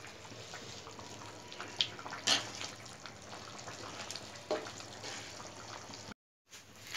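Vermicelli cooking in boiling tomato broth in a metal pan, stirred with a spoon: a steady wet bubbling and sloshing, with a few light clicks of the spoon against the pan. The sound cuts out briefly near the end.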